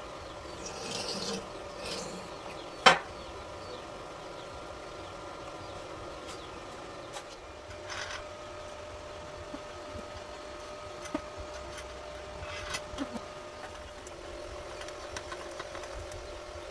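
Scattered handling sounds over a steady electrical hum: a couple of brief scrapes, one sharp loud knock about three seconds in, another click about eight seconds in, and a few light taps later.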